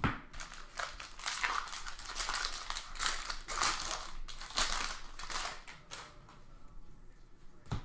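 Foil wrapper of a trading-card pack crinkling and being torn open, in a run of rustling strokes that eases off near the end.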